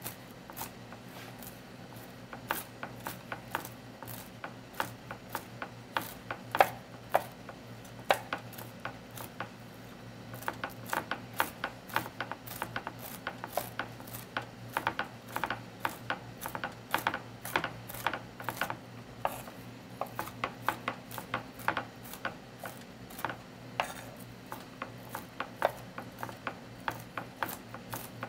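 Chef's knife chopping walnuts on an end-grain wooden cutting board: a steady run of sharp, irregular knife taps, a few a second.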